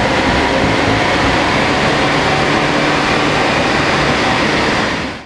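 BMW X3 20d's four-cylinder turbodiesel running hard on a chassis dynamometer, its engine, tyres and rollers making a loud, steady noise. The noise drops away quickly near the end.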